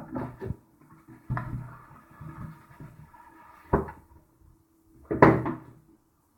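A cardboard power-supply box being handled and opened by hand: scattered knocks and rustling, a sharp knock near four seconds in and a louder thump about five seconds in.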